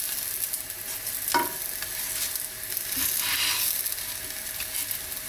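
Breaded pork cutlets frying in sunflower oil in a pan that is not yet fully hot, a steady sizzle, with a single light click about a second and a half in as a fork lifts a cutlet.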